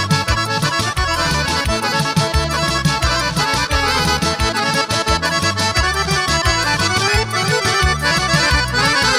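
Instrumental introduction of a Balkan folk song: an accordion plays the lead melody over a bass line and a steady drum beat, with no singing.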